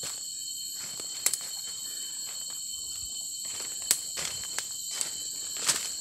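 Steady high-pitched chorus of forest insects, with a few sharp crunches of footsteps on dry leaf litter.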